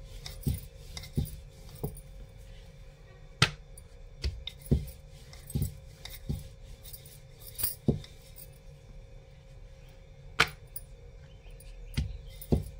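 Wooden rolling pin working dough on a rolling board, with irregular knocks and clicks about once a second as the pin and board bump against the counter. Two sharper clicks, about three seconds in and about ten seconds in, are the loudest.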